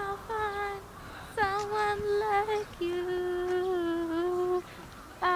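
A woman humming a slow tune in long held notes, with short gaps between them and a slightly lower, longer note in the middle.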